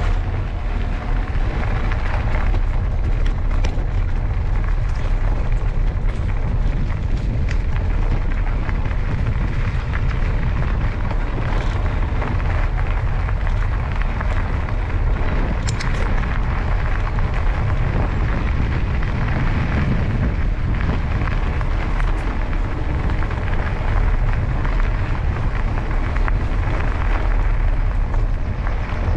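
Steady wind rumble buffeting a bike-mounted action camera's microphone while the mountain bike rolls along, with a hiss of tyre and trail noise and a few faint ticks.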